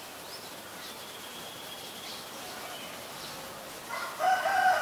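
A rooster crowing: one long crow that begins about four seconds in, the loudest sound here, over faint high-pitched chirps.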